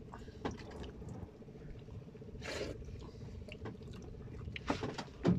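Wet mouth noises of a man eating raw sea urchin roe straight from the shell: a few short slurping and sucking bursts, the clearest about two and a half seconds in and a cluster near the end. A faint steady hum runs underneath.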